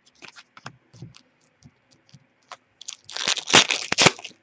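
Hockey trading cards and their foil pack wrappers being handled: small scattered clicks and rustles, then a louder crinkling burst about three seconds in as a pack is torn open or the cards are flipped through.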